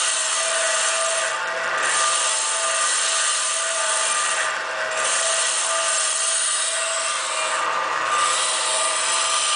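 A lathe-type cutting tool scrapes a light cut across the rim of a slowly turning cast-iron engine flywheel, with a steady whine from the DC drive motor and gearbox underneath. The scrape dips briefly about every three seconds; the cut runs smoothly, without chatter.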